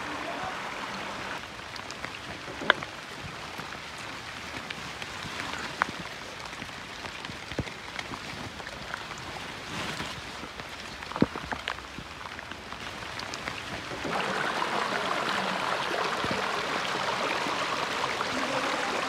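Running water of a mountain stream, a steady rush that gets louder about two-thirds of the way through, with a few sharp clicks scattered across it.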